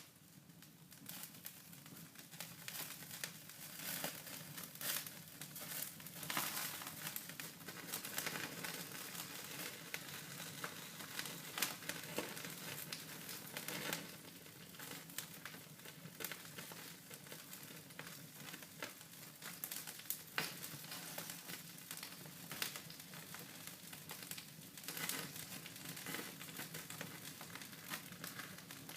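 Wood fire crackling in a fireplace: a steady run of small pops and snaps, with a few louder snaps scattered through.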